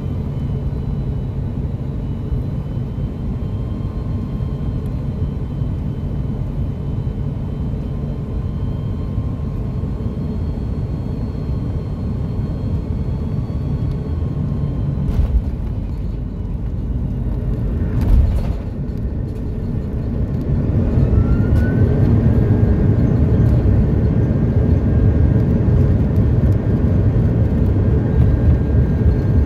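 Cabin noise of an Airbus A330-200 landing: steady airflow and engine hum on short final, a sharp thump about two-thirds of the way through as the wheels touch down, then a rising whine that levels off as the engines spool up into reverse thrust, the low noise growing louder.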